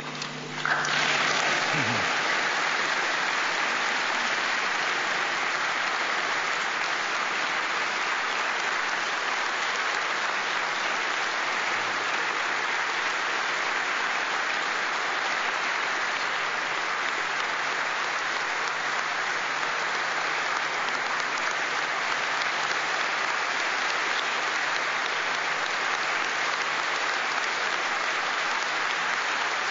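Large audience applauding steadily in a long ovation, starting about half a second in, as a speech ends.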